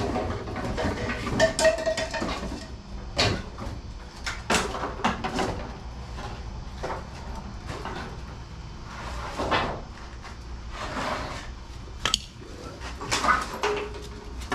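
Black plastic drain pipe and fittings being handled and pushed together in a floor trench: irregular knocks, clicks and scrapes of plastic on plastic and on grit, with a short squeak or two as a fitting is twisted.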